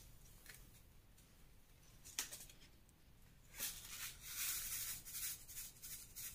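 A paper seed packet rustling and crinkling as it is handled and opened, starting about three and a half seconds in, after a single sharp click about two seconds in; before that it is near silent.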